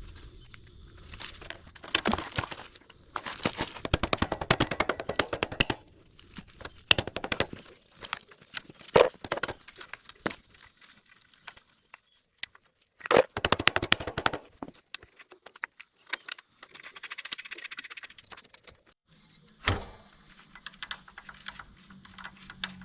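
Hand tools and metal motorcycle parts clicking, rattling and clanking during work on a swingarm, in bursts of rapid clicks with one sharp knock near the end, then a faint low hum.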